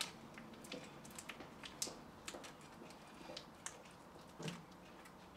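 Faint, scattered clicks and crinkles of a plastic wrapper being handled as a halogen capsule lamp held in it is pushed into the light fitting's lampholder. A slightly louder tap about four and a half seconds in.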